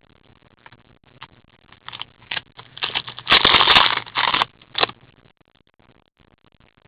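Foil trading-card packs and cards being handled: scattered crackles and scrapes, with a dense rustle lasting about a second near the middle, then fading to faint handling noise.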